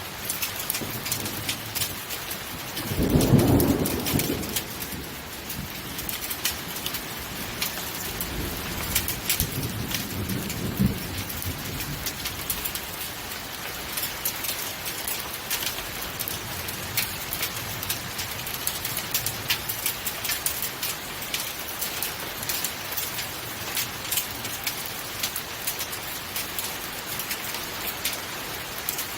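Heavy rain mixed with hail falling, with many sharp ticks of stones and drops striking surfaces. A loud thunder rumble swells about three seconds in, and a softer rumble follows around nine to eleven seconds.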